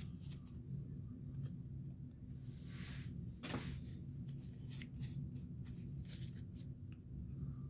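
Quiet handling of Pokémon trading cards and booster packs: scattered light clicks and taps, with a brief rustle about two and a half seconds in, over a low steady hum.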